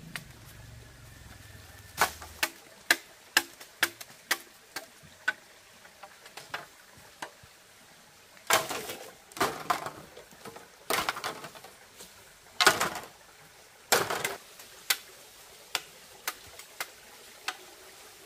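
Dry bamboo stalks and leaves knocking and crackling underfoot and under a pole as someone works through a heap of cut bamboo: a run of sharp clicks, then several longer crunching rustles about halfway through, then scattered clicks.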